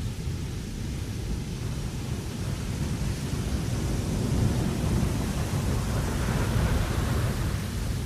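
Wind blowing across a ship's deck: a low, rumbling buffet with a hiss on top, swelling into a stronger gust about halfway through and easing off near the end.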